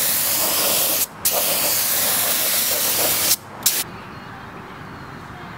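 Compressed-air paint spray gun hissing as it sprays paint, with a brief break about a second in, then a long spray that stops after about three and a half seconds, followed by one short squirt.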